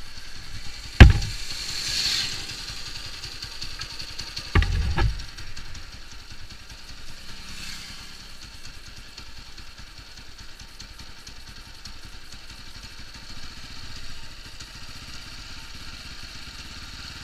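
TVS Apache RTR 200's single-cylinder four-stroke engine idling steadily, warmed up. Two dull thumps cut in, the loudest about a second in and another near five seconds.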